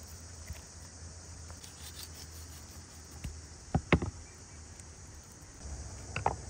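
A quick cluster of sharp knocks about four seconds in and another short knock near the end, over a steady low hum and a faint high hiss.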